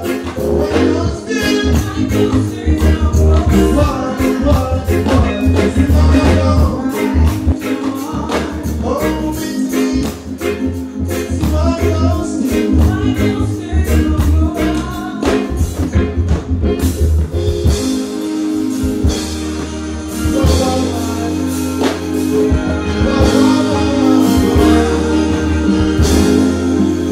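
Live reggae band music through a stage PA, with heavy bass and drums and a male voice singing over it; the drum strikes thin out about two-thirds of the way through.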